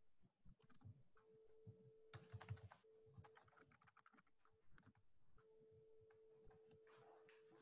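Near silence, with faint typing on a computer keyboard: scattered, irregular key clicks. A faint steady hum comes and goes under it.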